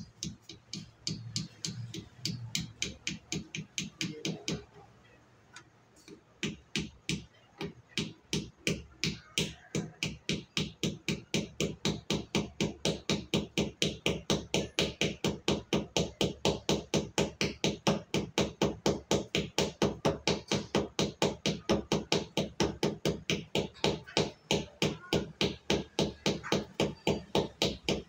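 Hammer tapping to seat a part into a refrigerator door. The taps come irregularly for the first few seconds, then settle into a quick, even run of about four a second and grow louder.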